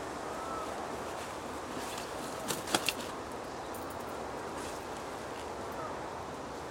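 Steady outdoor background hiss with a few faint chirps, and a short cluster of sharp clicks and taps about two and a half seconds in from handling a carp on an unhooking mat.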